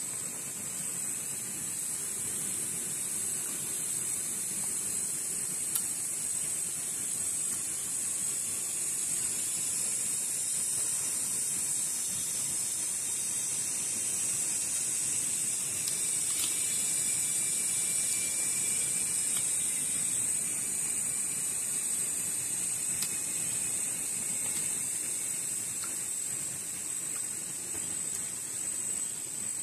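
Insects droning steadily at a high pitch, the sound swelling a little in the middle.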